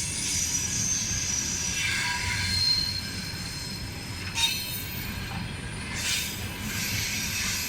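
Railway wagon wheels running on the rails: thin, high squealing tones that drift in pitch over a low rumble, with a sharp knock about four and a half seconds in.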